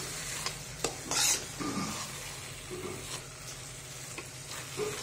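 A steel spoon stirring and scraping thick grated-carrot halwa around a metal pan, over a low sizzle of the mixture cooking on a slow flame with its sugar syrup absorbed. The scrapes are loudest about a second in, then lighter strokes and small clicks follow.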